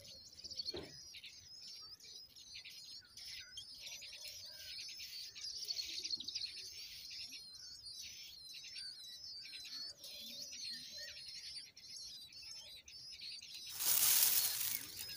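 Nestlings begging in a grass nest, a continuous stream of rapid, thin, high-pitched chirps. About a second before the end, a loud rustling flurry of wings and dry nest grass as a parent bird lands at the nest to feed them.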